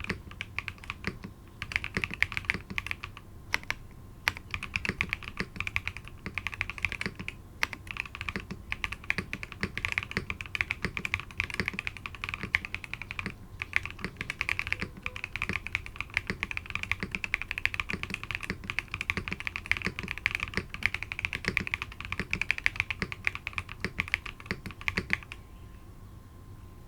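Typing on a Geonworks Frog TKL mechanical keyboard with WS Onion switches (polycarbonate top, nylon bottom housing, POM stem) on an aluminium plate, with TX clip-in stabilizers. It is a fast, continuous run of keystrokes with a few brief pauses, and it stops near the end.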